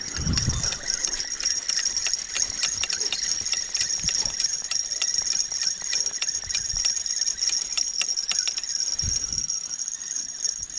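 Steady high-pitched trill of crickets, with scattered clicks and a couple of low thumps near the start and near the end.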